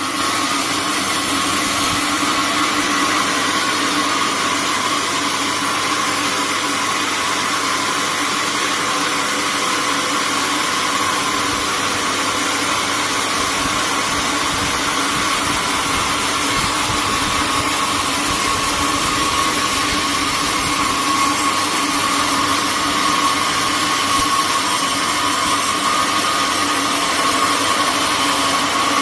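Sawmill machinery running steadily: a loud, even mechanical drone with a steady hum, growing slightly louder near the end.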